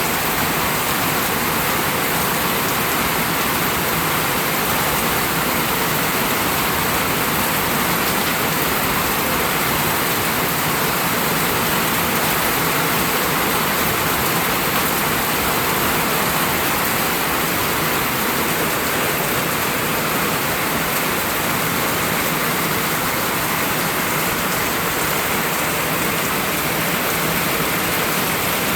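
Steady rain falling and hitting surfaces, an even hiss with no breaks or distinct drops standing out.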